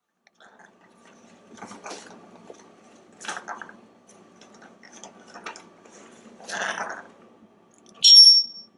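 African grey parrot growling and biting at a rug: a few short, raspy, crunchy sounds, a defensive growl at something it takes as a threat. Near the end comes one brief, loud, high-pitched squeak.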